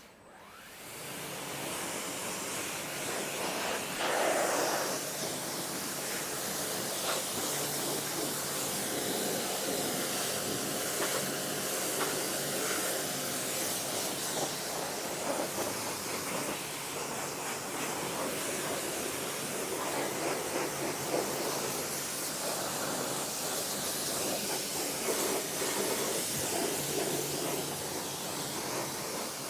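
Stihl REA 60 Plus battery pressure washer spraying a steady jet of water onto a motorbike, with its pump motor humming faintly underneath. The spray comes on about half a second in and runs on without a break.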